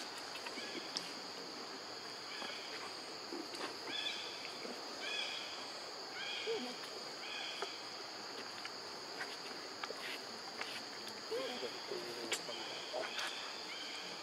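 Steady high-pitched insect drone, with two runs of short chirping notes about once a second and a few faint clicks.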